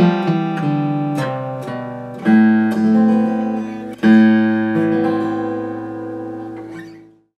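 Freshly restored Martin D-41 acoustic guitar being fingerpicked: a run of picked notes, then two strummed chords about two and four seconds in, each left to ring. The last chord dies away near the end.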